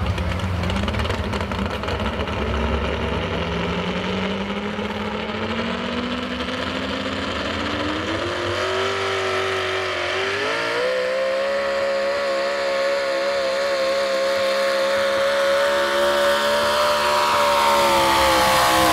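Modified 4x4 pulling truck's engine running through open exhaust stacks, its pitch climbing slowly for about ten seconds, then rising sharply about halfway through and holding at high revs as the truck pulls down the track under load.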